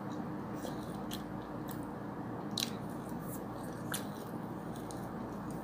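A person eating instant noodles: quiet chewing and mouth sounds, with several short clicks as a plastic spoon works the noodles on the plate, over a faint steady hum.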